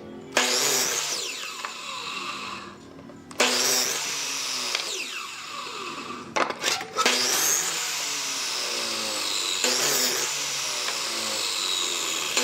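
A handheld power tool running in three long bursts with short breaks between them; its whine slides up and down in pitch.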